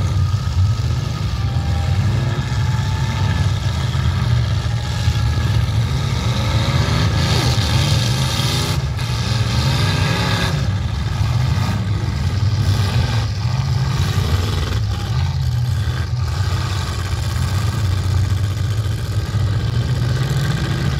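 Several demolition derby cars' engines running together in a loud, steady drone, revving up and down as the cars push and ram each other, with a couple of sharp knocks from collisions around the middle.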